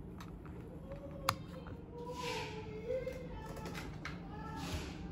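Faint song with a sung vocal line, played through a small budget soundbar and picked up by a microphone in the room. There is a sharp click about a second in.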